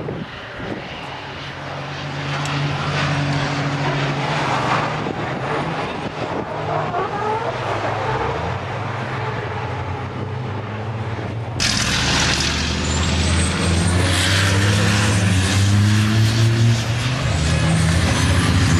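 Diesel engines of circuit racing trucks running past, their pitch rising and falling as they accelerate and lift. About two-thirds through, the sound jumps abruptly to louder, closer trucks pulling away with a rising engine note.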